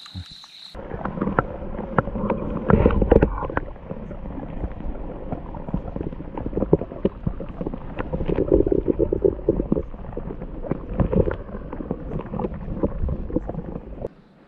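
Muffled sound from a microphone under water: a dense churning and gurgling, mostly low, full of small clicks and knocks, with louder swells about three and eight seconds in. It stops suddenly just before the end.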